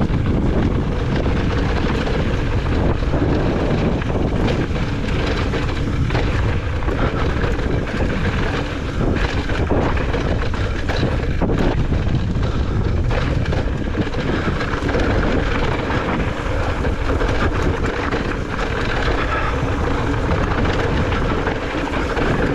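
Heavy wind buffeting the microphone over the rumble and rattle of a mountain bike descending a rough trail at race speed, with frequent short knocks as the bike hits rocks.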